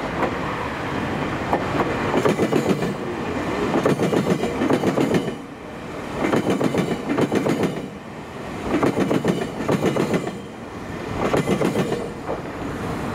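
Electric train's steel wheels clattering slowly across a railway diamond crossing. Each wheel set hits the rail gaps with a burst of rapid clicks and clacks, the bursts coming about every two and a half seconds as car after car passes.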